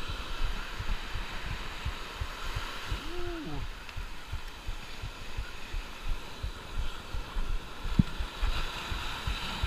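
Surf and wind noise with frequent irregular low thumps against the microphone. About three seconds in there is a short tone that rises and falls.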